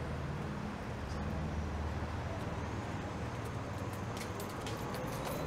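Street traffic with a large vehicle's engine idling, a low steady hum under the general noise of the road.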